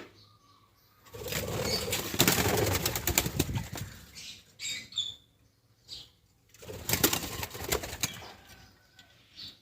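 Fischer's lovebirds flapping their wings in two bursts, the first about three seconds long and the second shorter, with a few short high chirps between and after.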